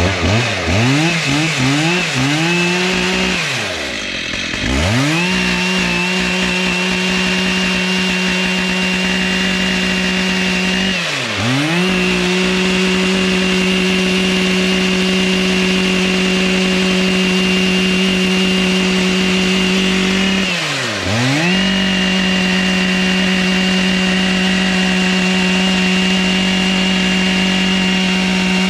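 Stihl two-stroke chainsaw cutting wood at full throttle. It revs up and down a few times at first, then runs in long steady stretches at high pitch, the throttle let off and opened again about 4, 11 and 21 seconds in.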